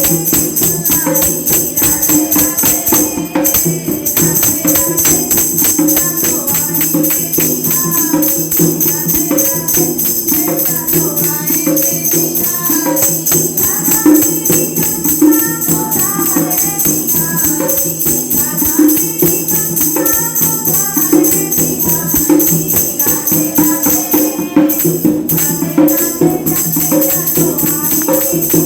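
Women singing a Hindu devotional bhajan to Krishna over a fast, steady jingling percussion beat.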